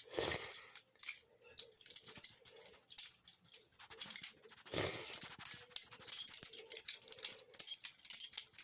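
Balisong (butterfly knife) being flipped: a rapid, irregular run of light metallic clicks and rattles as the handles swing on their pivot pins and clack together. Twice, near the start and about five seconds in, a louder short rush of noise cuts through.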